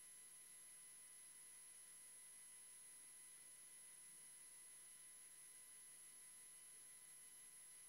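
Near silence: a faint steady hiss with a few thin, unchanging high tones, the hum of an idle audio feed.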